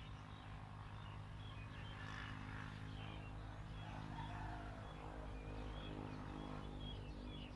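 A steady low mechanical hum, like a running engine, with small birds chirping faintly and repeatedly over it.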